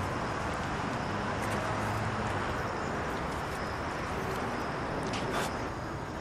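Steady outdoor ambience of distant road traffic, an even rushing hum, with a short scratchy sound about five seconds in.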